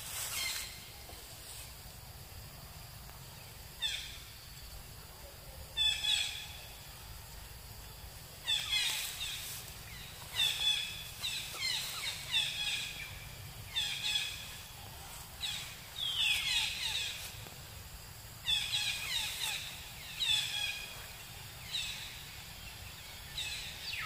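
Parrot calling: short calls that fall in pitch, the first faint about four seconds in, then repeated every second or so in runs, over steady low background noise.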